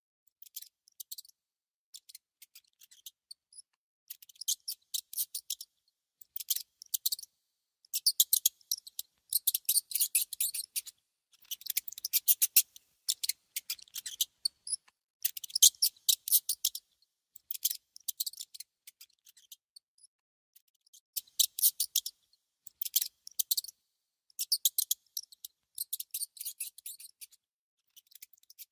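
A mouse gnawing at food: rapid crisp clicks in short bursts of about a second, one after another with brief pauses.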